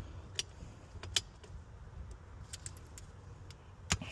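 Vice grips and metal parts clicking and clanking while the broken blower wheel's threaded insert is worked off the dryer's blower motor shaft. A few sharp clicks, the loudest about a second in and just before the end, with lighter ticks between.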